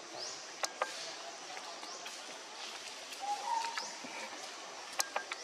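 Forest ambience with birds chirping in short rising calls over a steady high hiss, a whistled call about three seconds in, and a few sharp clicks, two near the start and one near the end.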